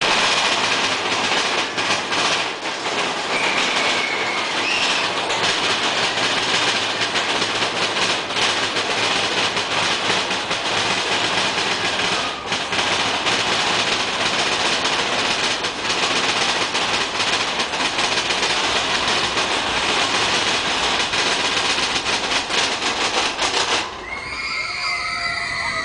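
Mine-train roller coaster running fast along its track in a dark tunnel: a loud, continuous rumble and clatter of wheels with rushing air. Near the end the rumble drops and riders' shouting voices come in.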